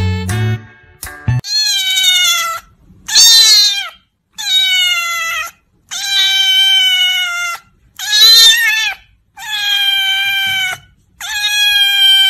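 A ginger-and-white kitten meowing loudly, about seven long meows in a row with short pauses between them. Background music plays in the first second and a half, before the meowing starts.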